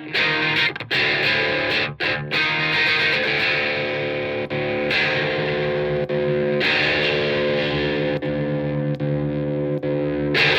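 Electric guitar played through a 1812 Custom Carabinier tube amplifier with a distorted tone: a few short, choppy chords in the first couple of seconds, then sustained chords held and changed every second or two.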